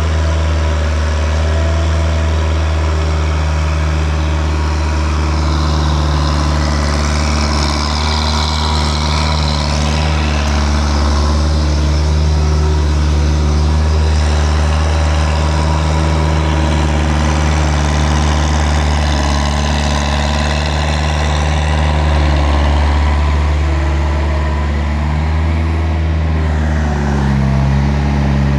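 A vehicle engine running steadily, with a low, even hum and a slight change in pitch near the end.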